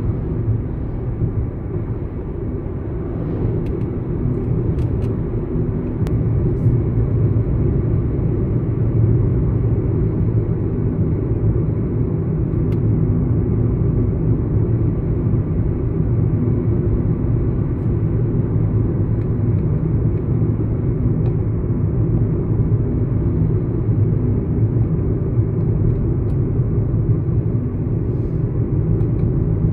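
A car driving at steady speed, heard from inside the cabin: a constant low rumble of engine and road noise with no change in pitch.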